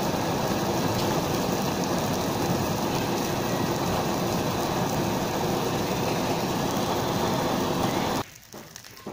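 Butane blow torch flame hissing steadily as it plays on a melting plastic water bottle, cutting off abruptly about eight seconds in.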